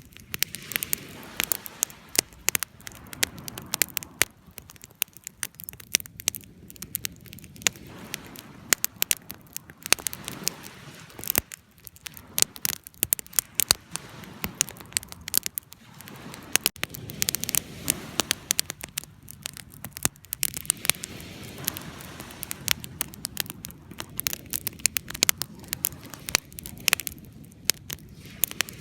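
Fire crackling, with many sharp, irregular pops over a low, steady rush of burning.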